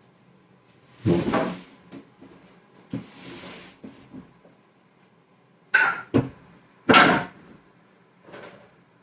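Irregular knocks and clunks of tools and hardware being handled on a wooden workbench, with a short scrape about three seconds in; the loudest knocks come about a second in and about seven seconds in.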